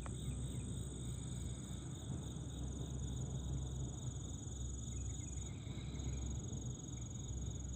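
Field insects, crickets or katydids, trilling: a high, very rapid pulsed buzz with a short break about five and a half seconds in, over a steady low rumble.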